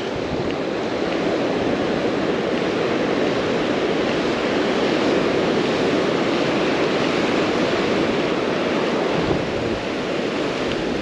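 Ocean surf washing up a sandy beach, a steady rush of water noise.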